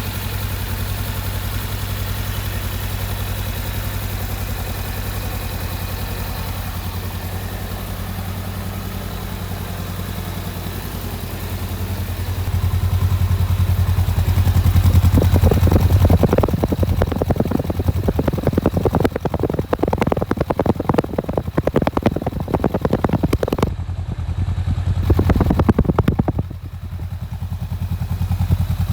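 Honda Rebel 500's parallel-twin engine idling steadily, then running louder in uneven surges from about twelve seconds in, before dropping back near the end.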